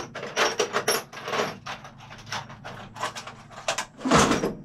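Tools being handled on a workbench: a run of light clicks and knocks, with one louder rushing scrape a little after four seconds in.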